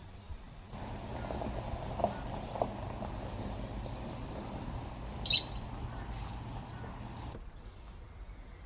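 Steady insect chirring in the background, with one short, sharp high bird chirp about five seconds in.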